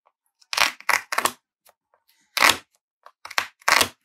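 The end of a metal ruler scraping and sawing at the wrapping of a small package to cut it open: about six short, irregular scrapes.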